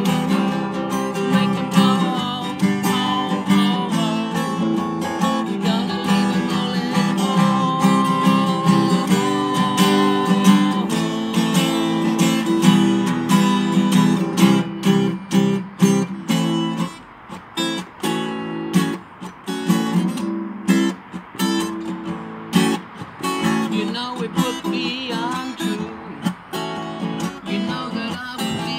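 Acoustic guitar being strummed, its chords ringing. About halfway through the strumming turns sparser, with short gaps between strokes.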